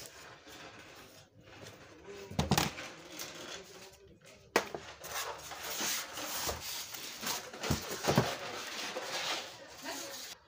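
Unboxing noise: styrofoam packing blocks being pulled off a new cassette tape recorder, rubbing and scraping against the unit and its plastic wrap, with several sharp knocks.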